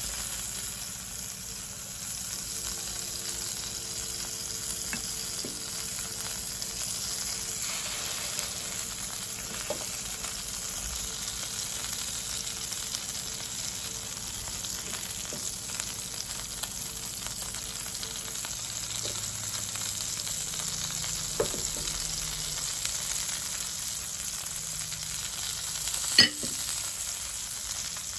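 Steak and butter frying in a metal roasting tin on a portable butane stove, a steady sizzle. A few light ticks sound through it, and one sharp knock near the end.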